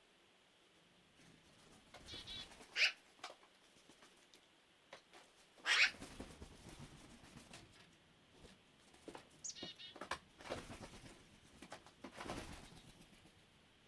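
Black-billed magpies calling several times, with scattered light clicks in between.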